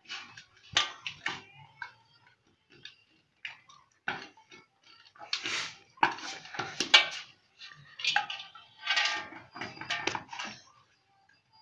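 A metal basin knocking and scraping on brick paving in irregular bursts as a toddler climbs into it, shifts about and climbs out, amid intermittent vocal sounds.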